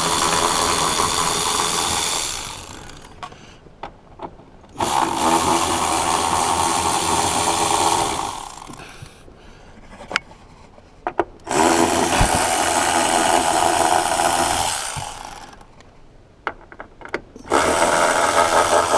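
Cordless power ratchet runs in four bursts of about three seconds each, a steady motor whine, as it backs out the 14 mm rear-seat bolts. There are small clicks in the pauses between bursts.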